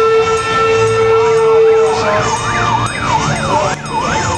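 An electronic siren yelping rapidly up and down in pitch, about two and a half sweeps a second. In the first two seconds, before the yelp takes over, a steady tone sounds.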